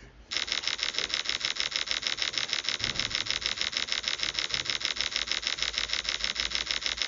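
A rapid, perfectly even clicking, about ten clicks a second, starting just after the beginning and stopping abruptly near the end.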